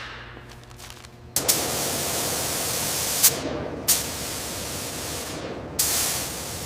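Compressed-air hiss from an air nozzle or spray gun, starting abruptly about a second and a half in and running steadily, with two short sharp clicks near the middle and a fresh burst near the end.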